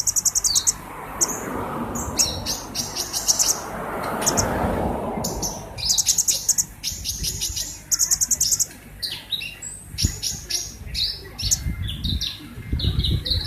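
Olive-backed sunbird (kolibri ninja) singing vigorously: rapid, high-pitched twittering trills in quick repeated bursts.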